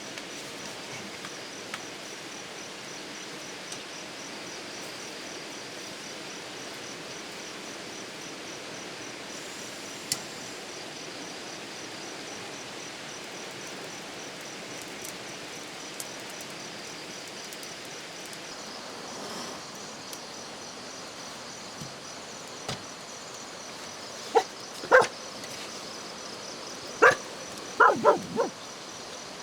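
A dog gives several short barks and yips near the end, over a steady outdoor background hiss.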